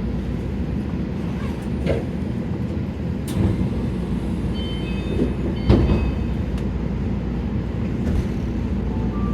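Tama Monorail car running, heard from inside the cabin: a steady low rumble of its rubber tyres on the concrete guideway beam, with a few short knocks, the loudest a little before six seconds in.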